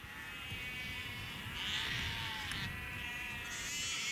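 Faint sheep bleating, a few wavering calls that overlap.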